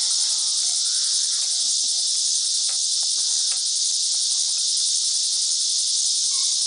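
Loud, steady high-pitched buzz of an insect chorus, unbroken throughout, with a few faint clicks and scuffles underneath.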